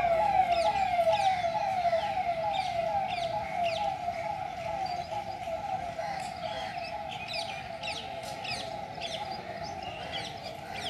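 Vehicle siren sounding in quick falling sweeps, about two a second, fading steadily as the vehicle moves away. Birds chirp throughout.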